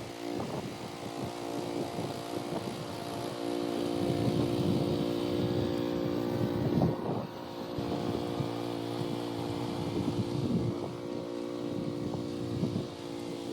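Gas-powered rototiller engine running steadily while the tines work through soil, its sound surging and easing unevenly.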